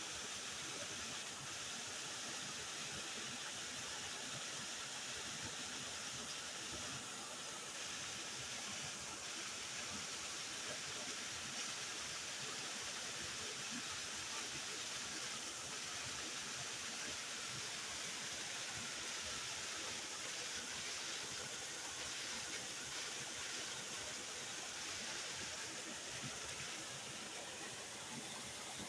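Waterfall: water pouring and splashing in a steady, unbroken rush, with a hiss-heavy high end.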